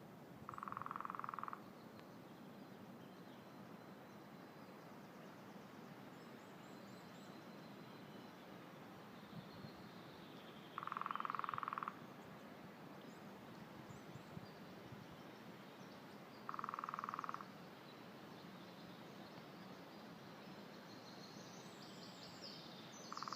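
Great spotted woodpecker drumming on wood in rapid rolls of about a second, four times with several seconds between, over the steady murmur of a river. Small birds chirp faintly and high, more so near the end.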